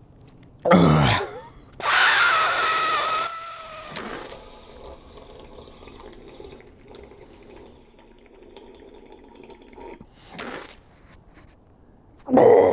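A man spluttering and letting water run from his mouth: a short vocal groan about a second in, a loud hissing splutter that fades over the next two seconds, a quiet stretch while the water trickles out, then a loud vocal exhale near the end.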